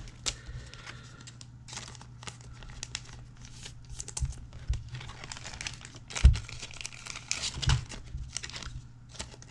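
Thin clear plastic penny sleeves crinkling as trading cards are handled and slid into them, with two louder soft knocks about six and eight seconds in.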